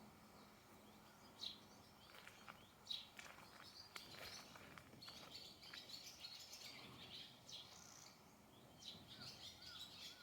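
Faint bird chirps: short, high calls repeating every second or two over a light background hiss, with a few soft clicks.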